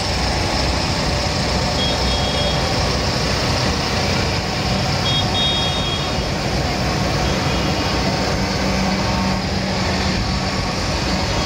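Diesel engines of a line of tractors driving slowly past, a steady engine rumble. Brief high-pitched beeps sound twice, about two and five seconds in.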